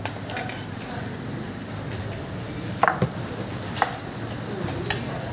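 Three sharp metallic clinks of kitchen utensils, about a second apart, over a steady low background hum.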